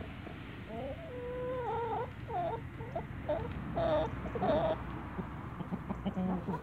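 Brahma chickens giving a run of short, wavering, whining calls for a few seconds, over a low background hum.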